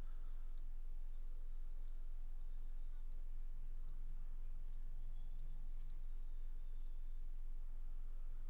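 Scattered computer mouse clicks, a dozen or so, some in quick pairs, over a steady low electrical hum.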